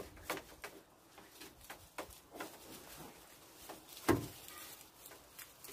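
Dried cymbidium orchid roots and pseudobulbs rustling and crackling as they are pulled apart by hand, with scattered short snaps and the sharpest one about four seconds in.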